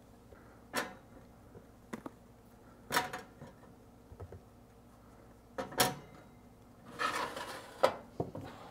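Separate knocks of tomatillos and poblano peppers being set down on a countertop toaster oven's metal wire rack, then a scraping rattle as the rack is pushed in, ending in a sharp knock, as the oven door is closed.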